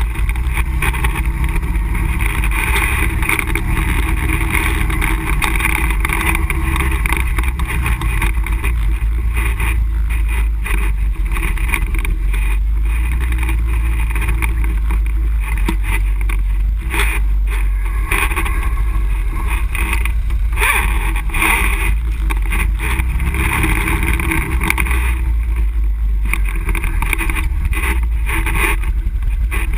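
ATV engine running steadily under riding load on a rough dirt trail, with occasional knocks and rattles as the machine goes over bumps.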